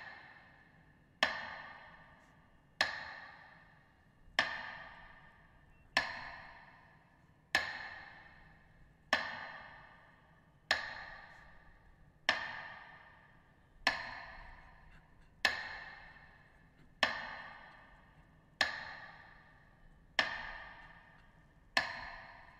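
Metronome beating slowly, one loud ringing tick about every 1.6 seconds, each fading away before the next: the metronome that marks the minute of silence.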